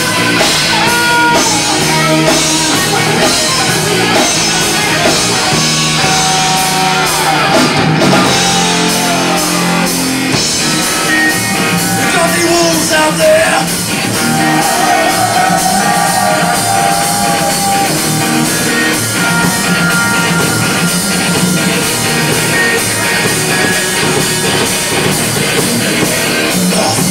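Heavy metal band playing live: distorted electric guitars, bass and a drum kit, heard from among the audience.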